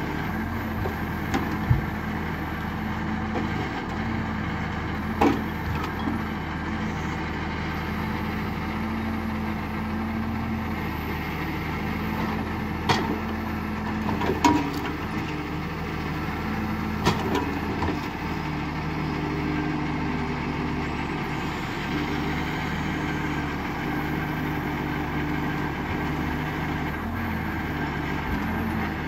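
Valtra 8350 tractor's diesel engine running steadily, powering the hydraulic crane of a Palms forestry trailer as it unloads logs. A handful of sharp knocks break through in the first two-thirds, logs knocking together as the grapple sets them down.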